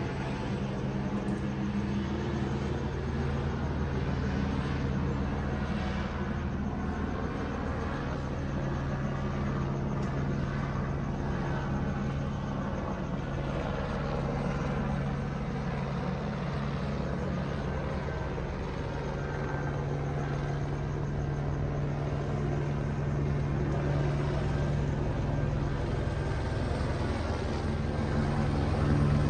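Police helicopter overhead: a steady low drone of rotor and engine, growing louder near the end.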